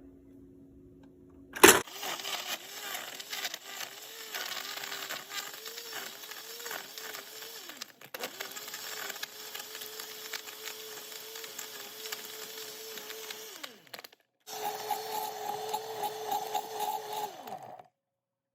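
Electric blender crushing ice cubes into a milk-based shake. It switches on with a click and runs in three bursts: the motor's pitch wavers at first as it chews through the ice, then holds steadier, and it winds down with falling pitch each time it stops.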